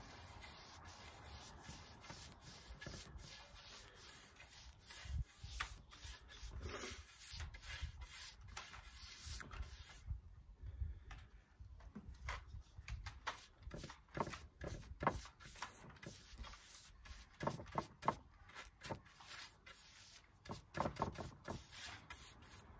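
A paintbrush brushing raw linseed oil onto pallet wood boards: repeated scratchy rubbing strokes of the bristles along the wood, with a quieter pause about halfway through while the brush is reloaded from the cup.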